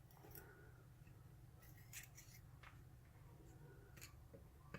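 Near silence with a few faint, small metallic clicks as the pins and springs of a disassembled pin-tumbler lock are handled and picked out of their chambers.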